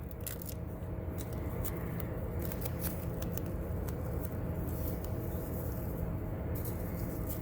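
Small crinkles and clicks of a paper sticker being handled and pressed into place, scattered over a steady low hum.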